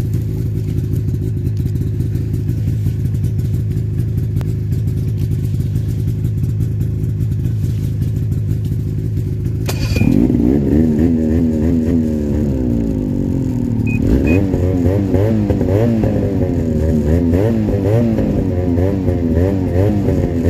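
Two-stroke snowmobile engine running at a steady idle. About ten seconds in, after a click, an engine note that rises and falls quickly takes over, and it gets louder again around fourteen seconds.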